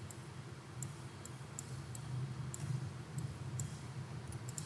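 Faint computer mouse clicks, about a dozen at uneven intervals, over a low steady hum.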